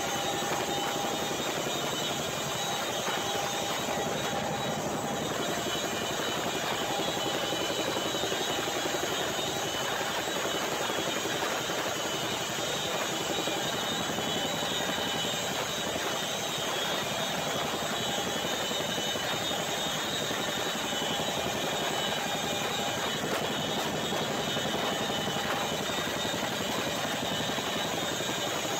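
Boeing CH-47 Chinook tandem-rotor helicopter in flight, heard from its open rear ramp: a steady, dense noise of the rotors and twin turboshaft engines, with a few steady high tones over the rush.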